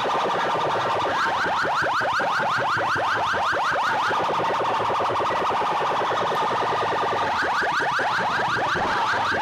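An electronic siren-style alarm effect played loud through a sound system. It holds a steady wailing tone, and twice it breaks into runs of rapid rising chirps, about seven a second.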